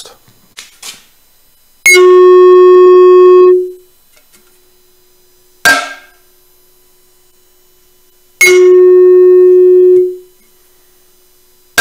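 A small hammer taps a welded aluminium expansion-chamber cone three times. The first and third taps are each followed by a loud, clear musical note held about a second and a half before fading, as if the 'tuned' exhaust were an instrument. The middle tap is a short clank.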